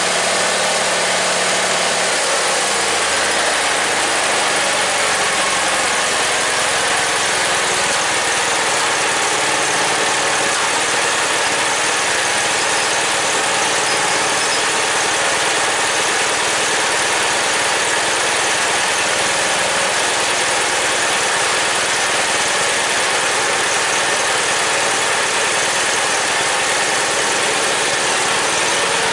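Simplicity garden tractor's engine running steadily, its low note shifting about two seconds in, then holding even.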